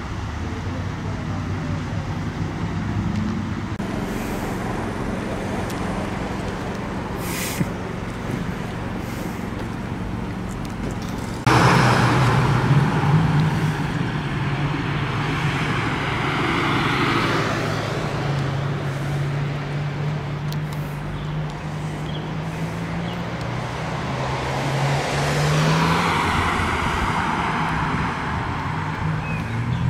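Ford Mustang engines running: a continuous low engine drone that turns suddenly louder about a third of the way in, then swells twice as cars rev or drive by.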